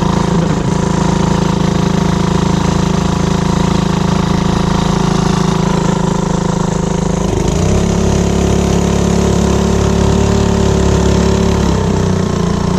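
Small Honda four-stroke outboard motor running. Its note changes about seven and a half seconds in, a little louder for about four seconds, then drops back near the end.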